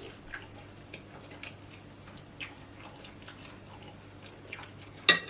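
Eating sounds from oatmeal fufu: soft, wet chewing and mouth clicks, scattered and faint, with one sharper click about five seconds in.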